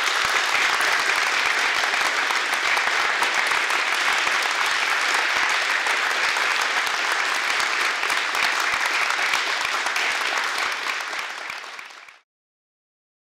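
Applause from a roomful of kneeling karate students: dense, steady clapping of many hands that tapers off and cuts out about twelve seconds in.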